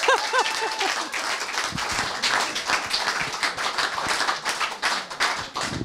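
A small group of people applauding, with a short voice calling out in the first second.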